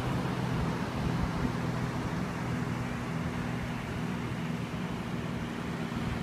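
Motor vehicle engine running at a steady low hum, with constant road and wind noise while driving.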